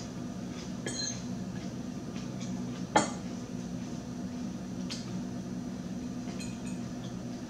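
Metal fork clinking and scraping against a plate of salad, a few light clicks with one sharp, loud clink about three seconds in, over a steady low hum.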